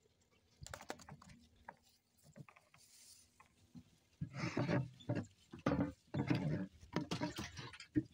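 A few light clicks, then a run of five or six loud, rough scrapes and knocks over the second half: the wooden hatch cover on a small boat's deck being worked loose and slid open over the fish hold.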